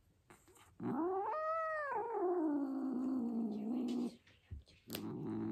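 Domestic cat yowling in protest while having its claws trimmed. One long drawn-out yowl rises and then slides down, and a lower, steady moan starts about five seconds in.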